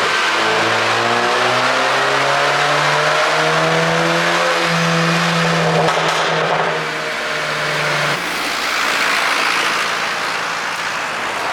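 Audi A3 40 TFSI's turbocharged engine accelerating under load, its pitch rising steadily for about four seconds and then holding. It drops off about seven seconds in as the throttle is lifted, leaving a steady rushing noise.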